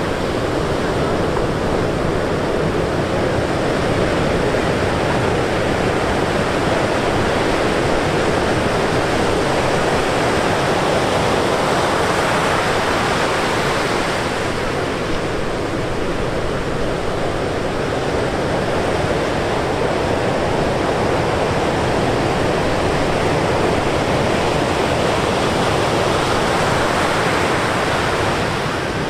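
Ocean surf breaking on a beach: a steady roar of waves and foaming wash that swells louder about halfway through and again near the end.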